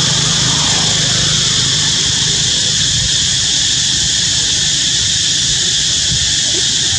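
Steady high-pitched insect chorus from the forest, unchanging throughout, over a low engine hum that is strongest in the first second.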